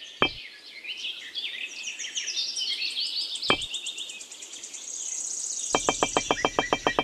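Many birds chirping and singing. Two sharp knocks, about a quarter second and three and a half seconds in, as small bricks are set down on a board. Near the end, a fast, even clicking starts at about ten clicks a second.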